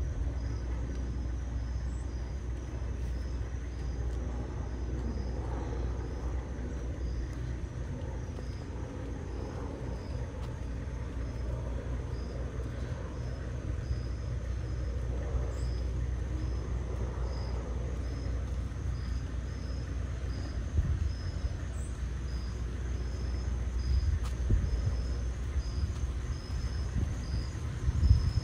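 Outdoor street ambience: a steady low rumble, with insects chirping in a regular high pulse about once a second.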